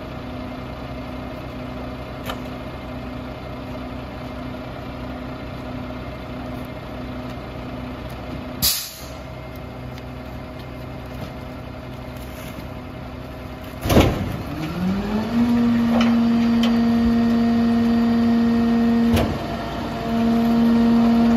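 Mack LR garbage truck's diesel engine idling, with a short hiss of air about nine seconds in. About fourteen seconds in there is a loud bang, and the engine speeds up to a louder steady drone as the Heil 5000 rear loader's hydraulic packer runs its compaction cycle, dipping briefly near the end.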